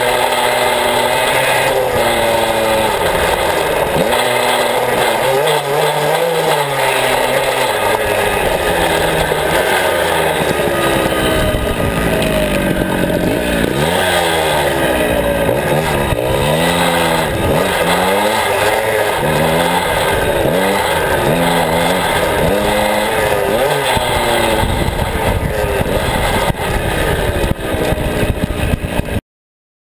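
49cc Suzuki mini-cross bike's small two-stroke engine revving up and down repeatedly as it is ridden over dirt. The pitch rises and falls about every second through the middle stretch, and the sound cuts off suddenly near the end.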